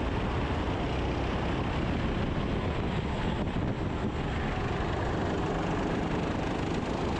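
Four-stroke racing kart engine running under load, heard from onboard the kart and mixed with wind rush on the microphone; the sound stays steady throughout.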